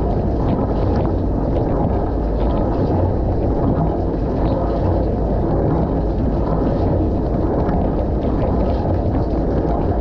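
Dishwasher mid-wash, heard from inside the tub: water from the spray arms splashing steadily over the dishes and the camera housing, with a steady low hum of the wash pump underneath.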